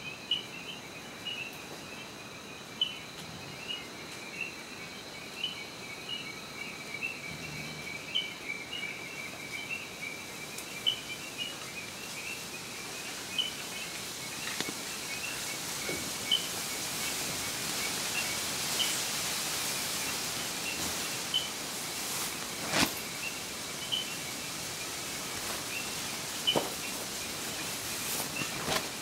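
Frogs calling at night: short chirps repeated about once or twice a second over a steady high trill. A gust of wind swells in the middle and dies away, and there are two sharp snaps near the end.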